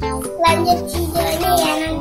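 Music with a singing voice over a steady, repeating bass line.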